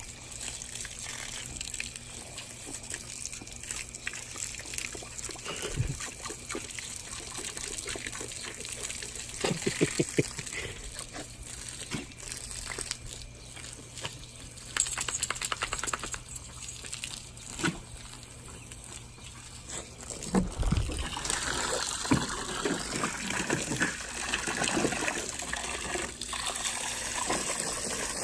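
Water gushing from a garden hose and splattering onto a boxer dog playing in the spray, with irregular sharper splashes throughout and a fuller, louder spray in the last third.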